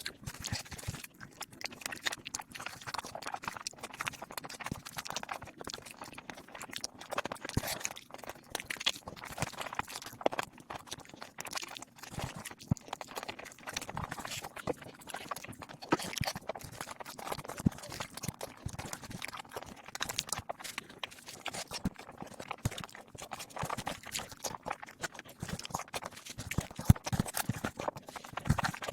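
Eating sounds sped up about tenfold: wet chewing, lip smacks and clicks of panta bhat (soaked fermented rice) run together into a fast, dense patter of short clicks.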